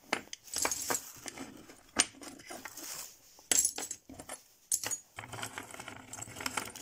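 Gold-plated copper CPU heat-spreader lids clinking and clattering against each other as they are scooped up by hand from a loose pile, in sharp, irregular metallic clinks.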